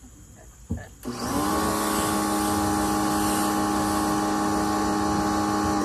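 Electric pressure washer starting up about a second in, its motor quickly rising to a steady hum while the spray hisses.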